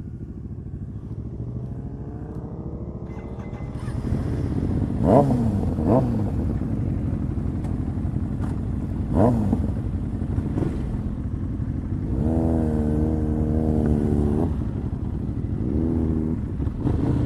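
Ducati Hyperstrada's 821cc L-twin engine pulling away and accelerating, its revs shooting up and dropping sharply a few times about five, six and nine seconds in, then holding a steady pull for a couple of seconds around twelve seconds in.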